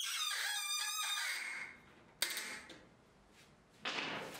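High, wavering squeaks as a threaded insert is turned into the MDF spoil board with an Allen key, dying away about a second and a half in. A sharp click follows a little after two seconds, then a short stretch of tool-handling noise near the end.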